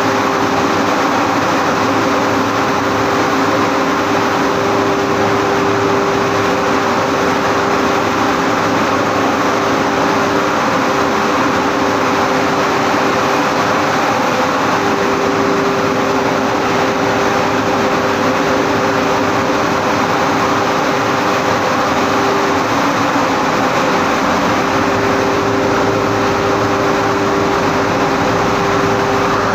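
Multi-stage red chilli grinding plant running: a loud, steady machinery drone with a constant whine held throughout.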